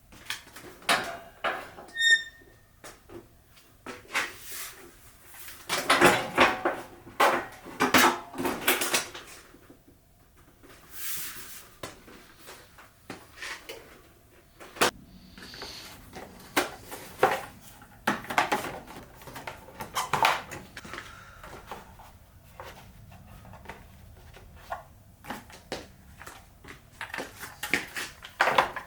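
Tools and metal parts being handled: irregular clicks, knocks and clatter, with a short metallic ring about two seconds in.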